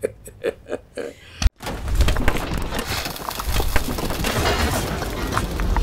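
A man's chuckling laughter in short rhythmic pulses dies away in the first second. After an abrupt cut, a dense clattering, crashing sound effect from an animated logo sting fills the rest.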